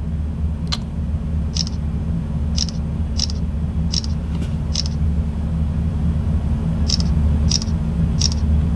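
Samsung Galaxy Z Fold 2 camera shutter sound, playing as photos are taken in quick succession: nine short clicks, six over the first five seconds and, after a pause of about two seconds, three more. A steady low hum runs beneath.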